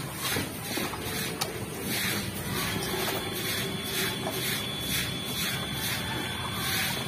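Wild pigs eating at a trough, with chewing and snuffling, under an even pulsing hiss of about three pulses a second.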